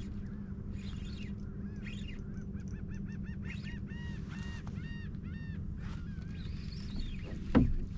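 A bird calling a rapid series of short, high, rising-and-falling notes, several a second, over a steady low hum; a single sharp knock near the end.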